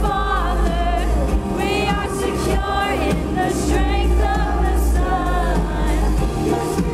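Live worship band with guitars playing a contemporary Christian worship song, with sung vocals and a strong, steady bass.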